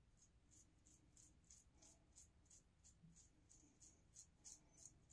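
Faint, quick strokes of a three-piece safety razor scraping through lathered stubble on the neck, about three strokes a second.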